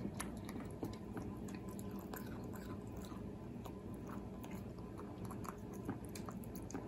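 Cat eating from its bowl: a steady run of small, irregular chewing clicks and crunches.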